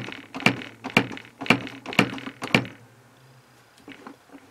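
Hammer tapping a centre punch against a rough casting to mark bolt-hole positions: about six sharp metallic taps, about two a second, stopping about two and a half seconds in, with a couple of faint clicks near the end.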